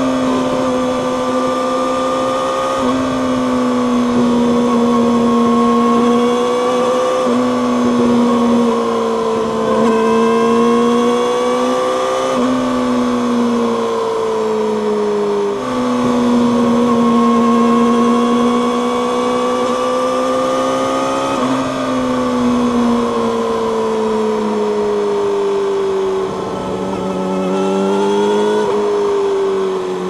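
Yamaha YZF-R6's 599 cc inline-four running through an Akrapovic megaphone slip-on exhaust at road speed. The engine note climbs and drops several times, breaking sharply in pitch about every three to six seconds.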